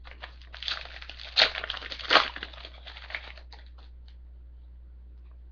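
A foil trading-card pack wrapper being torn open and crinkled, in a burst of crackling that peaks twice and stops about three and a half seconds in.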